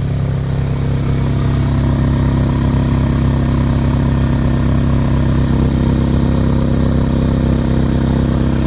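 2004 Honda Civic EX's 1.7-litre four-cylinder engine idling steadily and loudly through aftermarket headers and a straight test pipe in place of the catalytic converter, its idle settled down after the start.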